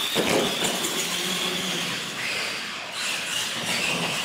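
Electric motors of R/C monster trucks whining at full throttle during a drag race, the high whine dipping in pitch about two seconds in and climbing again near the end.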